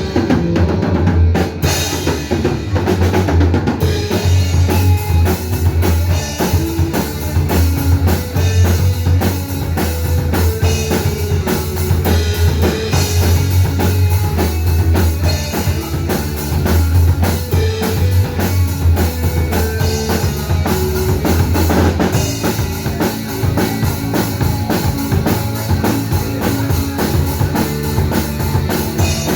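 Live band playing, with the drum kit to the fore: bass drum and snare hits keeping a steady, busy beat over a strong low bass.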